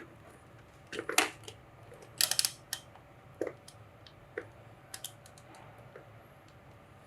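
Light, irregular clicks and taps, a few scattered singly and a quick cluster of them a little over two seconds in.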